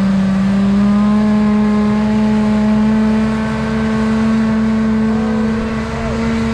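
Tractor running a rear-mounted sulfur duster, its engine and blower fan making a steady droning hum that climbs slowly in pitch, with wind buffeting the microphone.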